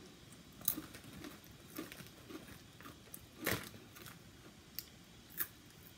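Lay's potato chips being bitten and chewed: a handful of short, crisp crunches spread over the seconds, the loudest about three and a half seconds in.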